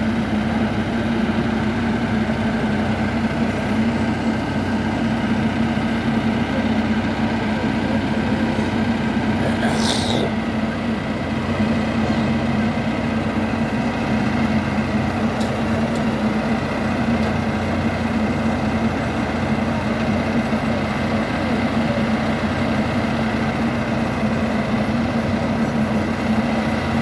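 Engines of a combine harvester and a JCB backhoe loader running steadily, a constant low hum.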